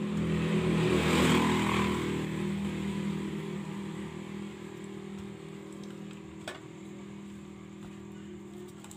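Engine of a passing motor vehicle, growing loudest about a second in and then slowly fading away, with one light click later on.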